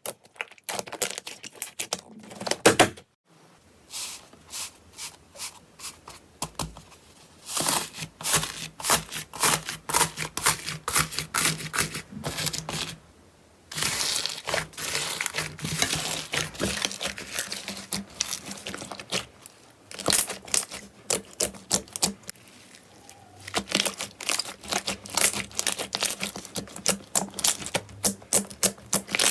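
Slime being squeezed and worked by hand, making dense crackling and popping, with brief pauses about 3 and 13 seconds in.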